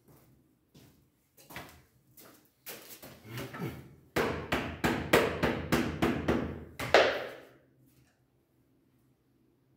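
Hand work on an adjustable door frame: scattered clicks, then scraping and a loud run of rapid clattering as plastic connectors are pushed onto the frame piece on cardboard, stopping abruptly about three quarters of the way in.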